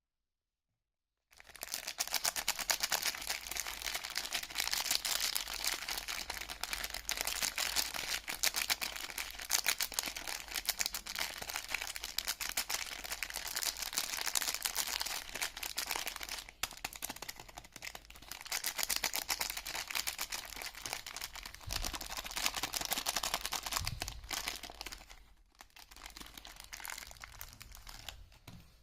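Soap wrapper being crinkled and peeled open by hand: a dense, continuous crinkling that starts suddenly about a second in, with a few brief dips, and fades out near the end.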